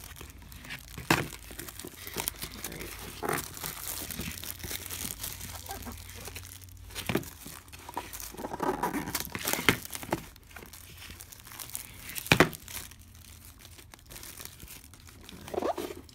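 Fingers picking and peeling at the sticker seal on a cardboard trading-card box: scratchy tearing and crinkling with scattered sharp clicks and taps, the loudest about a second in and near twelve seconds in.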